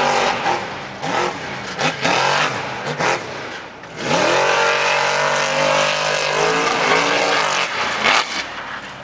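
Monster racer's engine revving hard, its pitch rising and falling with the throttle, with a steep climb in revs about four seconds in as the racer takes off over a jump.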